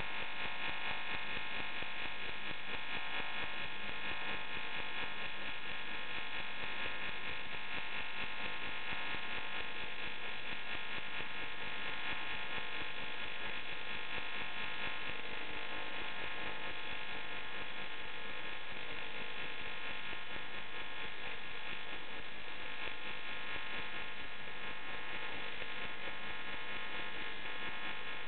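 AC TIG welding arc on aluminium (AMg5 alloy) tube, a steady electric buzz held without a break as a long bead is laid.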